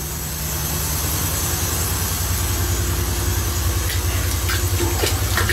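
Low, steady engine-like rumble of machinery running, with a fast even pulse and a faint steady hum above it; a few faint knocks near the end.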